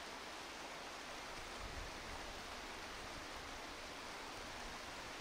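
Steady, even hiss with no pitched hum in it, and a brief low rumble about a second and a half in.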